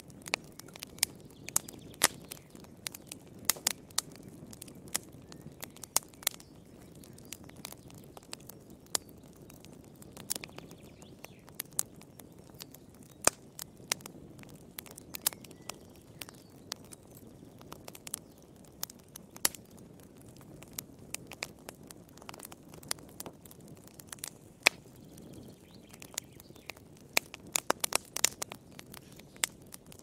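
Log fire crackling in a fireplace: irregular sharp pops and snaps over a low, steady rush of burning, with a quick run of pops near the end.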